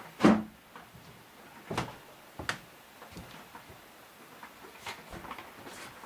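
A sharp knock about a third of a second in, the loudest sound, followed by two lighter knocks about a second and a half and two seconds later, and a faint tap near the end.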